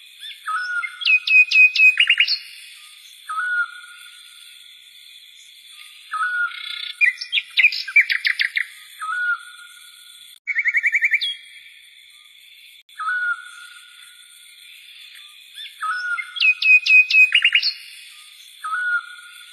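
Songbirds singing: a short whistled note repeated every few seconds, with bursts of fast, high, loud notes four times, over a faint steady high hum.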